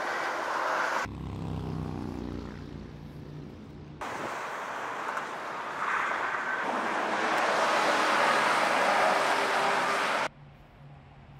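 Road traffic noise: a low engine hum for about three seconds, then a broad rush of passing cars that swells and cuts off suddenly near the end, heard in hard-cut segments.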